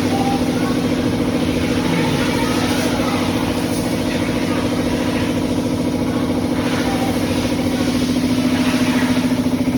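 A machine running steadily: a droning hum with a fast, even pulse, unchanging throughout.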